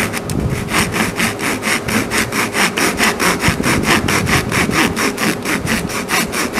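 Dovetail saw cutting the angled tail cheeks into a wooden board by hand: a quick, even rasping rhythm of about four to five saw strokes a second.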